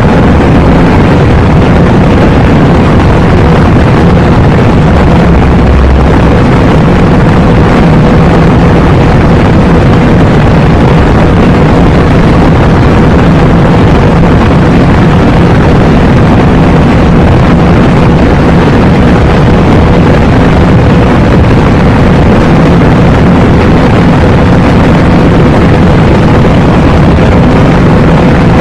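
Audi RS3's turbocharged five-cylinder engine and wind noise at a steady high speed: a loud, distorted drone that holds one pitch throughout.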